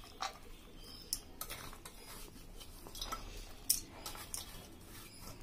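A few faint, short clicks and taps in a steel mixing bowl as chopped onion is dropped in by hand, the sharpest about three-quarters of the way through.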